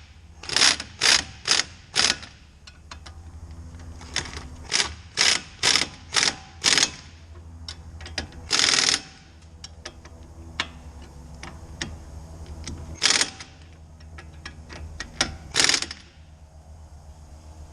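Hand ratchet wrench tightening the strut-to-knuckle bolts: short bursts of ratchet clicking on each return stroke, in runs of four or five about half a second apart, with one longer burst near the middle and a few single strokes toward the end.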